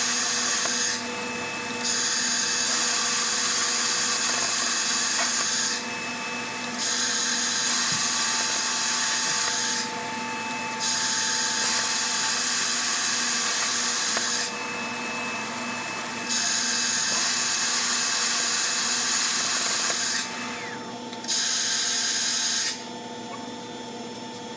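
Handheld plasma cutter cutting steel plate: a loud, steady hiss of the arc and air. The hiss dips briefly about five times and stops near the end.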